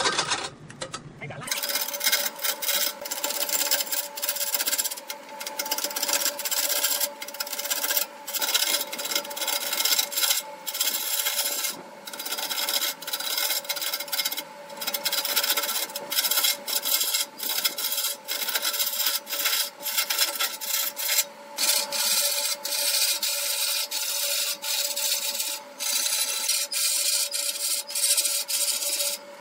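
A rag packed with wood shavings held against a large wooden blank spinning on a lathe, making a steady rough rubbing and scraping with an irregular grainy crackle, to burnish the turned surface. A steady hum from the running lathe sits beneath it.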